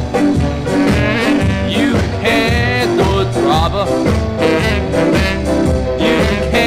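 Ska music playing with a steady beat.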